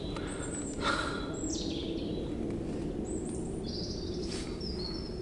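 Small birds calling: a few short high chirps and one falling call, over steady outdoor background noise. A brief soft knock about a second in.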